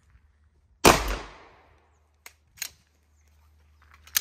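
A single pistol shot about a second in, with a short echoing tail, followed by a few faint clicks.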